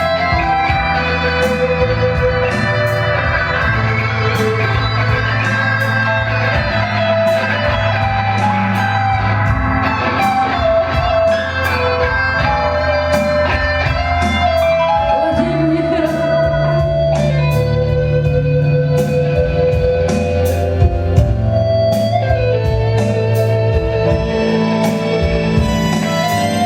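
Instrumental break of a live band: guitar playing over keyboards, with low held notes underneath and regular percussive hits.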